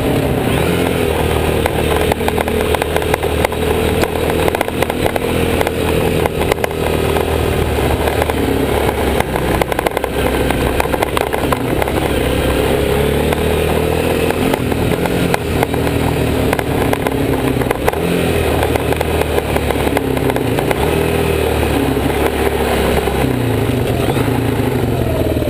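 Yamaha Big Bear 350 ATV's single-cylinder four-stroke engine running hard at high speed, its pitch held fairly steady, with rattles over the rough ground; the engine note drops near the end as the quad slows.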